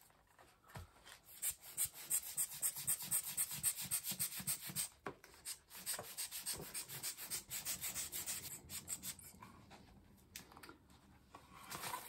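Hand-squeezed rubber air blower bulb puffing air at a painted paper page: short hissy puffs several times a second, busiest from about a second in to about five seconds, then lighter and more scattered.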